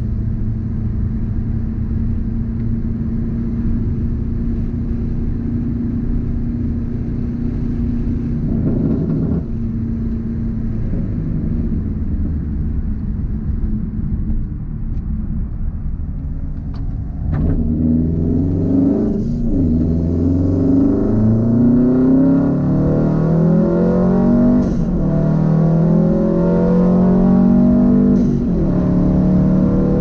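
2004 Subaru WRX STI's turbocharged 2.5-litre flat-four with a Tomei exhaust, heard from inside the cabin. It holds a steady cruising note for the first half, then accelerates hard: the note climbs and drops back about three times as the driver changes up through the gears.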